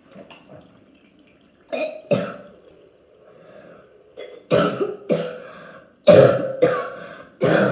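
A boy coughing: two coughs about two seconds in, then a run of coughs in quick succession from about four and a half seconds. It is the real cough of a boy sick with a cold.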